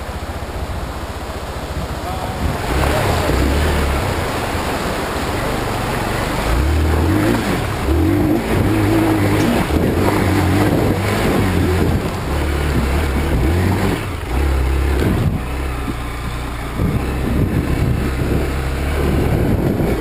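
Hero Xpulse 200 motorcycle's single-cylinder engine pulling the bike up a rough trail, the revs rising and easing with the throttle. It gets louder about three seconds in and backs off briefly twice near the end, with wind rushing over the microphone.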